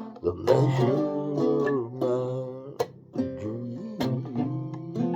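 Acoustic guitar playing the instrumental ending of a slow ballad: a few strummed chords with notes ringing on between them.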